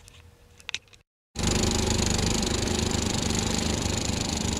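Steady, loud engine-like machine noise that cuts in suddenly about a second in, after a moment of dead silence. It is preceded by faint room tone with a couple of small clicks.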